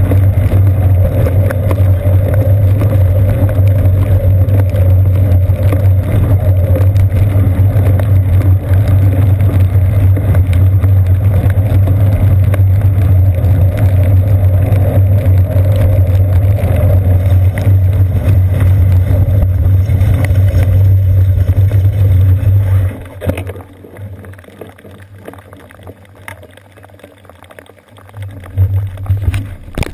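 Steady, loud low rumble of a bicycle rolling over wet pavement, picked up through a seat-post-mounted GoPro Hero 2 in its sealed housing: road vibration and wind buffeting the case. About 23 seconds in it drops off abruptly to a faint hiss as the bike comes to a stop, with a couple of brief bumps near the end.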